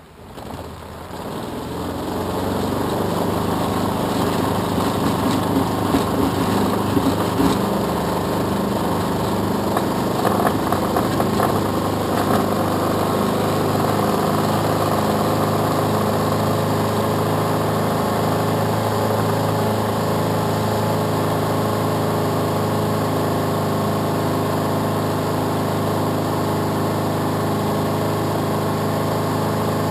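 Single-engine propeller of an SD-1 Minisport microlight heard from inside the cockpit, going up to full power for takeoff: the engine noise builds over the first couple of seconds, then holds a steady, loud drone. Irregular rattling knocks come through for several seconds in the first half while the aircraft rolls on the grass runway, and the drone runs on steadily through the climb.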